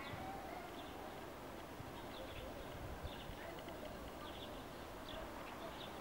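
Faint, brief bird chirps, high-pitched and coming every second or so, over a steady low outdoor background noise.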